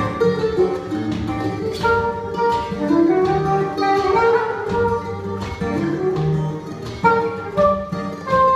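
Live acoustic trio playing together: mandolin and acoustic guitar picking the accompaniment while a soprano saxophone plays a sliding, slurred melody.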